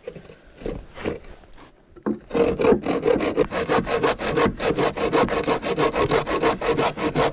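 Hand saw cutting through a wooden plank: a few light knocks of handling, then from about two seconds in steady rapid back-and-forth sawing strokes, several a second.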